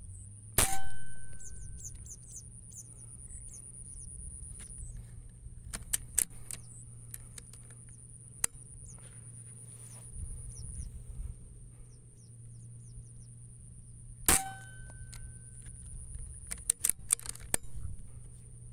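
Two sharp rifle shots fired at ducks, one just after the start and one about 14 seconds in, each with a brief metallic ring that fades within a second. Smaller clicks come in between, over a steady high insect drone.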